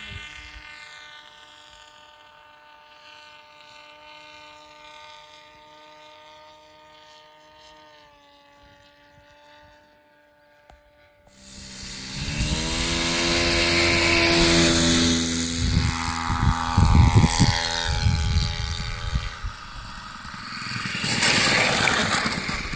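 Radio-controlled model airplanes running. First a faint steady motor whine that eases slightly down in pitch about eight seconds in. Then, about eleven seconds in, a much louder model aircraft engine cuts in, rising in pitch and running hard with a rough rumble underneath.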